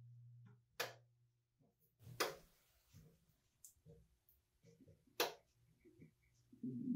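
Faint handling sounds while tomato paste is squeezed from a metal tube into a pot: three sharp clicks, about one, two and five seconds in, among soft scattered taps, with a brief low rustle near the end. A low steady hum stops within the first second.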